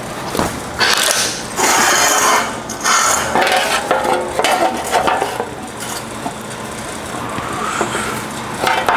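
Sheet-metal fender panel handled and fitted onto a wire-form buck: the metal rattles, scrapes and clanks against the wire, busiest from about one to three seconds in.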